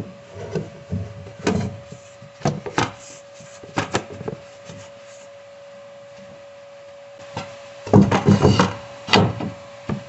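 Baseboard pieces being knocked and slid into place by hand: a string of sharp knocks and rubbing scrapes, busiest about eight to nine seconds in, over a steady faint hum.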